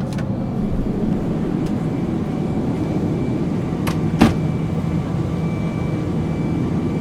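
Airplane cabin noise: a steady low drone of engines and airflow, with a faint steady high tone above it. Two sharp clicks about four seconds in, close together, the second louder.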